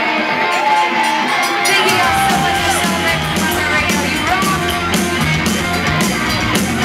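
Live rock band playing loudly, with voices singing and shouting over it; the bass and drums come in about two seconds in.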